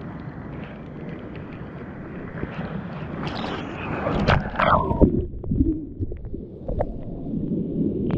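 Sea surf rushing and splashing around a camera held at water level, with a louder splash of breaking water about three to five seconds in. After that the sound turns muffled and low.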